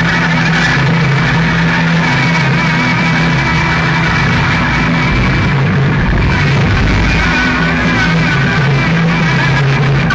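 Loud live band music: baritone saxophone over drums and keyboards, playing steadily without a break.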